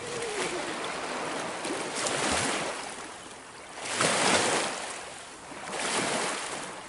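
Small lake waves washing in and breaking against a rocky shore, surging about every two seconds, loudest about four seconds in.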